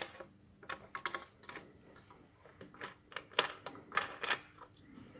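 Irregular light clicks and taps as the upper limb of a takedown recurve bow is seated in the wooden riser's limb pocket and its limb bolt is screwed in by hand. The clicks come in two loose clusters, about a second in and again around three to four seconds in.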